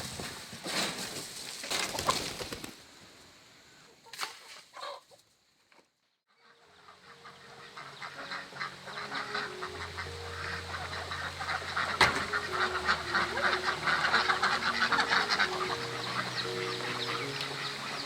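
A few knocks and rustles, a short near-silent gap, then farm poultry calling over background music from about six seconds in.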